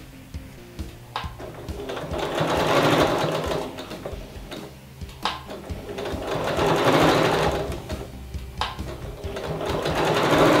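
Electric domestic sewing machine stitching a fabric strap, its running sound rising and falling about every four seconds, with a few sharp clicks along the way.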